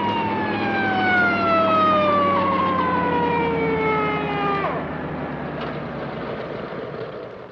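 A siren winding down, its pitch falling steadily over a low steady hum, then breaking off abruptly a little past halfway; the remaining hum fades out near the end.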